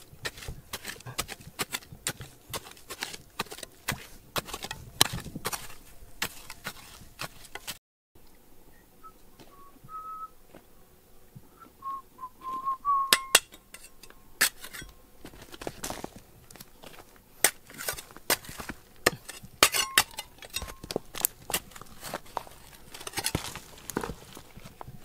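Irregular sharp clinks and knocks of hard objects striking, in quick succession, with a short break about eight seconds in. A faint thin wavering whistle-like tone follows the break for a few seconds.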